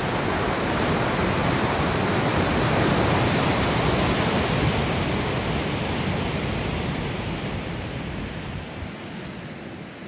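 Sea water rushing along the hull of a ship under way, a steady rush that fades down over the last few seconds.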